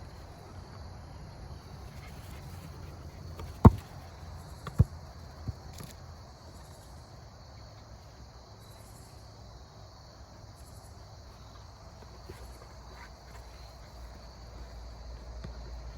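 A basketball bouncing three times, starting a few seconds in, each bounce quieter and the gaps getting shorter as it settles. Insects chirp faintly throughout.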